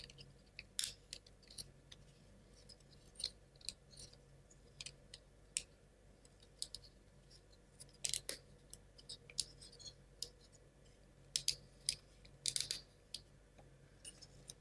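Light, irregular clicks and taps of laser-cut plywood model parts being handled and pressed together by hand, with small clusters about eight seconds in and near the end.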